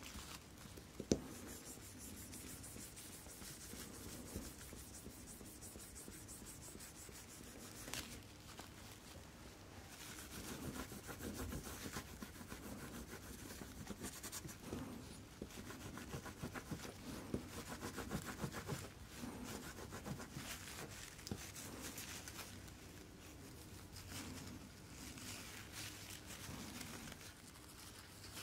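Paper tissue rubbing a metal watch case to polish it with metal polishing compound: faint, quick scrubbing strokes that grow busier through the middle, with one sharp click about a second in.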